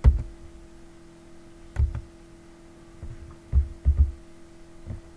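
About six dull thumps with sharp clicks, irregularly spaced, from working a computer mouse and keyboard on the desk beside the microphone, over a steady electrical hum.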